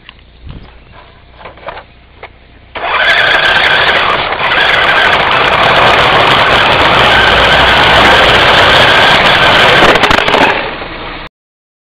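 Ford Falcon GLi station wagon's straight-six doing a burnout on the brakes: engine held at high revs while the rear tyres spin and squeal. It starts suddenly about three seconds in, after a few faint clicks and knocks, and cuts off abruptly near the end.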